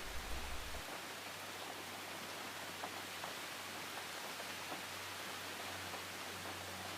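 Steady, soft rain hiss with a few faint drop ticks.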